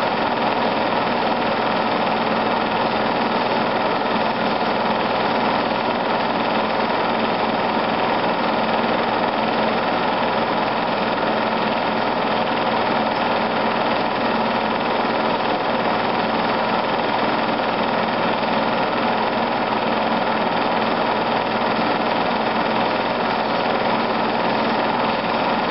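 Steady mechanical whirr of a film projector running, as when a silent home movie is transferred, unchanging throughout with a constant hum.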